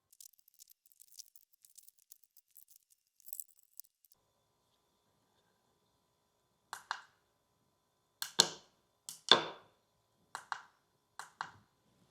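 Faint rapid ticking for about four seconds, then a series of about seven sharp clicks and clacks from small parts being handled: connectors and small test lights being fitted to an Auxbeam switch panel.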